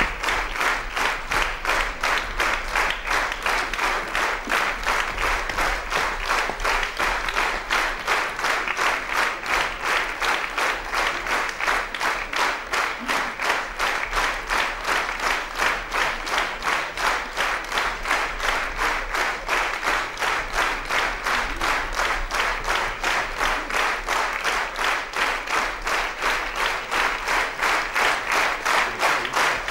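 Theatre audience applauding in unison, the claps falling together in a steady, even rhythm.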